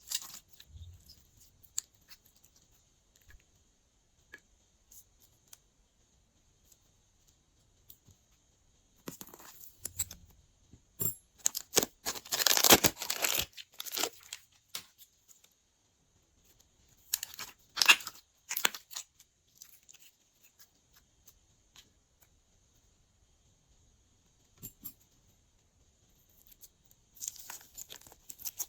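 Close-up bursts of tearing and crinkling as slime and its add-in materials are handled, with near-quiet pauses between them; the longest, loudest burst comes a little before the middle.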